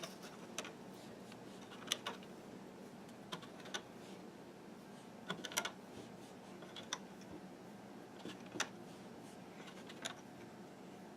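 Faint, irregular small clicks and snaps of rubber bands being stretched and set onto the plastic pegs of a Fun Loom, about a dozen over the stretch.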